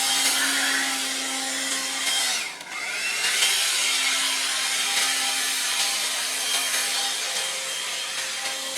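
Leaf blower running steadily with a motor hum. About two and a half seconds in it is let off briefly, the pitch falling and then rising again as it spins back up.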